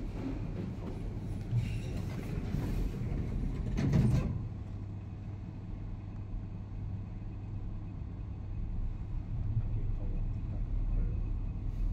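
Schindler passenger lift running: a steady low hum and rumble from the car, with a louder clunk about four seconds in.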